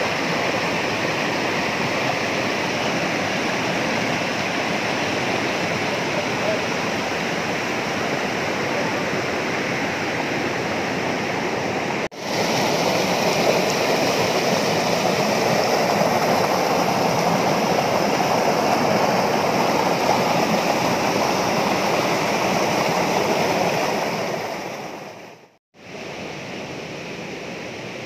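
Rocky mountain stream rushing and splashing over boulders, a steady rush of water. About halfway through it cuts to a louder, closer rush, and near the end it dips briefly and comes back quieter.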